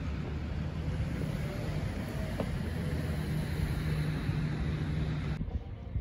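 Road traffic noise: a steady low rumble of vehicles with a low engine hum, which cuts off suddenly near the end, giving way to quieter open-air hiss.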